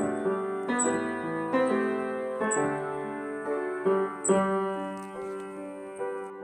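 Piano playing chords, each struck and left to ring and fade before the next, in a slow, hymn-like accompaniment.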